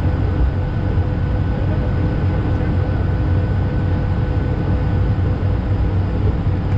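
Cabin noise inside an Airbus A220-300 taxiing after landing. A steady, dense low rumble from the ride over the taxiway is overlaid with a few faint, constant hums from its PW1500G geared turbofans running at idle.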